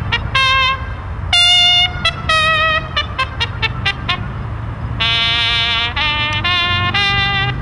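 A military service theme song played on brass as a march: a run of short, separated trumpet-led notes, with a longer wavering passage about five seconds in.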